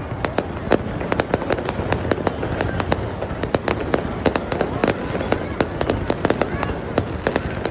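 Fireworks display: a rapid, irregular string of sharp bangs and crackles, several a second, over a continuous rumble.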